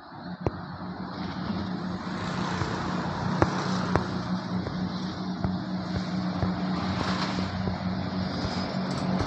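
Daewoo diesel railcar train running on the rails, its engine hum steady and slowly growing louder as it approaches, with a few sharp clicks.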